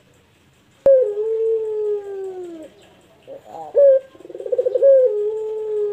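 Barbary dove (puter pelung) cooing: about a second in, a long drawn-out coo that slides slowly down in pitch. Near the middle come a few short notes and a fast rolling trill, and then a second long falling coo near the end.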